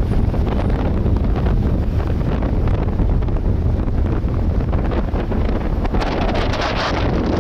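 Wind buffeting the microphone of a camera on a moving vehicle, a steady heavy low rumble, with traffic noise mixed in. About six seconds in the rushing grows louder and brighter.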